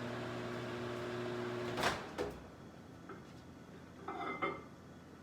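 Microwave oven running with a steady hum, cut off about two seconds in by a loud click as the door is opened before the timer has run out, followed by a second click. A brief clatter comes about four seconds in.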